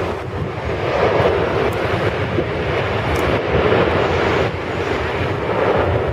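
Boeing 737 jet engines running loud on the runway: a steady rumble and roar that swells and eases irregularly.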